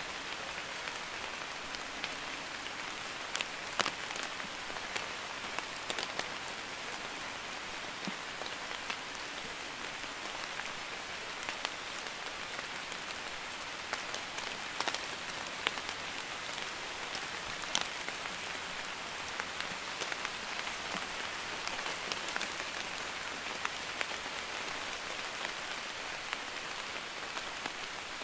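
Light rain falling steadily on a wet paved surface: an even hiss with many scattered sharp ticks and splashes of single drops hitting the puddled ground.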